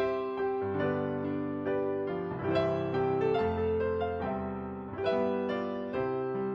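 Slow, gentle piano music: sustained chords and single notes changing about every second.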